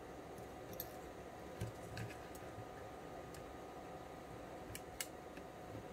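Faint scattered clicks and light knocks from a hand-operated plastic spring-making jig as a steel wire is clamped and bent in its bending head, with a sharper click about five seconds in.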